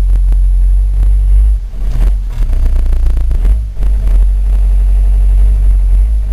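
Turbo-diesel engine of a 2005 Fiat Ducato camper running on the road, heard from inside the cab as a loud, steady, deep rumble, with two brief dips in level.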